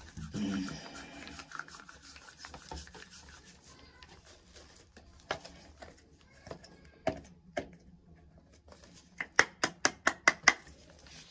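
Hands rubbing and handling small objects, with a few scattered sharp knocks, then near the end a quick run of about ten sharp clicks in a little over a second.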